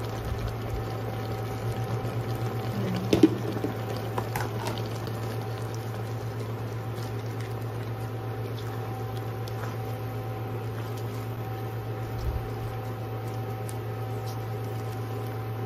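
Coconut milk simmering with shrimp and fern leaves in a nonstick wok and being stirred with a silicone spatula, over a steady low hum. A sharp knock about three seconds in is the loudest sound, with lighter knocks later.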